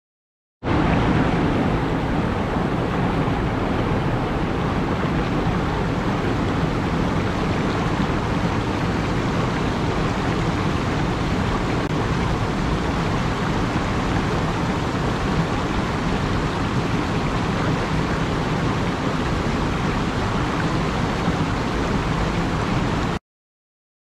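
Steady rush of cascading mountain water, a dense even roar that starts abruptly about half a second in and cuts off abruptly near the end.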